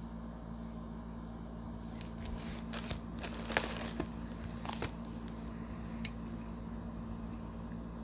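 Light rustling and a handful of sharp clicks, as of small objects being handled, between about two and six seconds in, over a steady low electrical hum.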